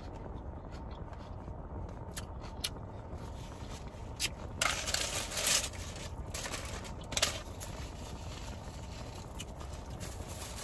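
Close-up eating sounds: crisp crunching and chewing, with a louder run of crunches about halfway through and another a couple of seconds later, over a steady low hum.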